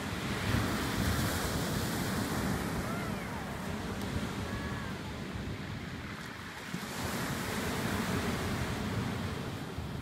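Sea waves washing onto the shore, with wind buffeting the microphone; the surge eases about two-thirds of the way through, then builds again.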